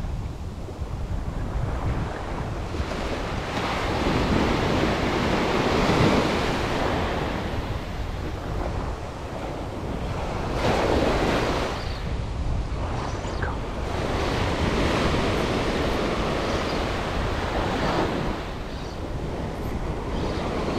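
Ocean surf washing up a sandy beach at close range, swelling every few seconds as small waves break and run up, then easing off. Wind buffets the microphone underneath.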